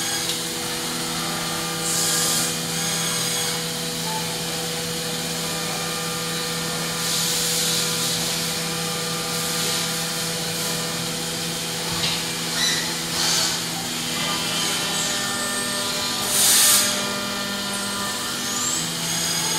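Deckel Maho DMU 50 five-axis machining centre running with coolant pouring from the spindle head, heard through the closed enclosure: a steady hum and whine of several tones over a constant hiss, with short hissing rushes every few seconds, the loudest about three-quarters of the way through.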